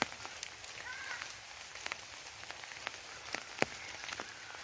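Irregular, scattered sharp clicks and crackles, with faint short bird chirps about a second in and again near the end.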